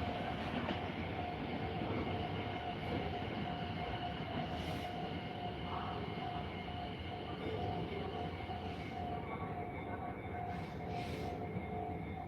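Tobu Tojo Line train running through a level crossing, with a steady high tone held throughout over the rumble.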